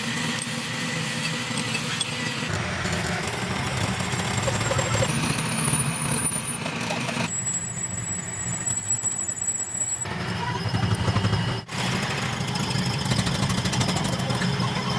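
Machinery running steadily, a low hum with a thin high whine over it, the sound changing abruptly several times.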